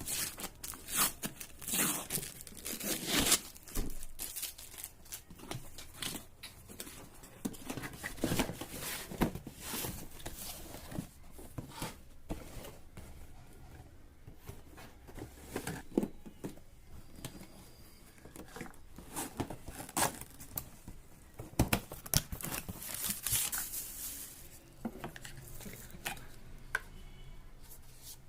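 A hairdryer's packaging being opened by hand: irregular tearing and crinkling, with handling noises in between.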